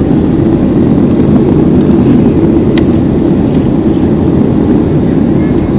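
Steady cabin noise of a Boeing 737 airliner in flight, a loud, even rumble of engines and airflow heard from a window seat. A light click sounds about three seconds in.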